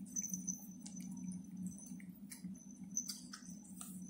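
Two cats eating shrimp: faint, scattered chewing clicks and small wet smacks over a low steady hum.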